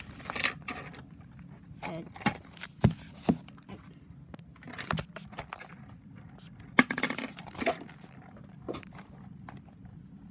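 Handling noise of a paper notebook and pen on a desk: the paper rustles a few times, with several sharp knocks and clicks in between.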